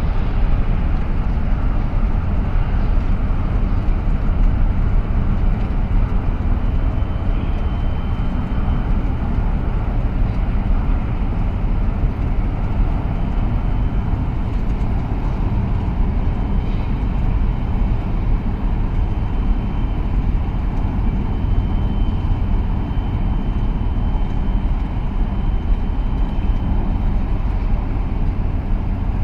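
Steady low rumble with an even wash of noise from a large container ship passing close by. A faint thin high whine comes and goes.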